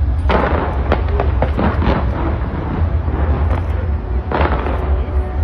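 Fireworks bursting from the sides of a skyscraper: a quick run of sharp bangs in the first two seconds, then another burst about four seconds in, over a steady low rumble.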